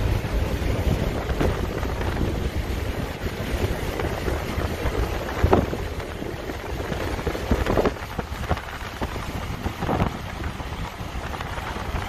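Wind buffeting the microphone over the low rumble of a moving car, with a few short knocks.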